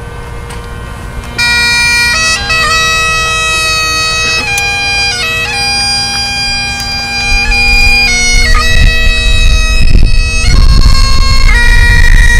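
Bagpipes playing: the steady drones sound throughout, and the chanter melody comes in loud about a second and a half in, held notes broken by quick grace notes. A low rumble joins underneath over the second half.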